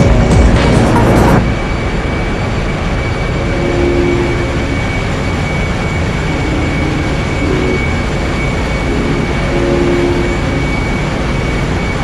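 Loud, steady machinery noise in a ship's engine room, with a steady high whine running through it. It is louder for about the first second, then settles at a lower steady level.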